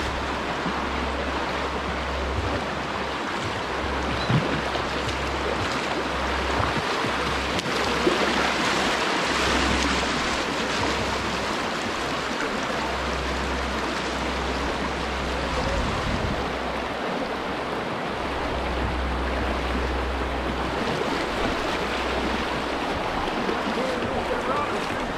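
Whitewater rushing over a rocky river shoal, heard up close from a kayak paddling through the rapid: a steady, even rush of water.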